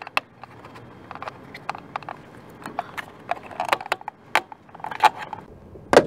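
Side-view mirror glass on a 2013 Honda Accord being pried out of its housing with a plastic pry tool: a string of irregular plastic clicks and snaps as the glass pops free, the loudest near the end.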